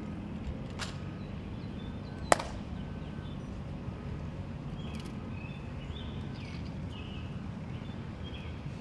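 Ceremonial honor guard rifle drill at present arms: one sharp crack of rifle handling about two seconds in, with a few fainter clicks around it, over a quiet outdoor background.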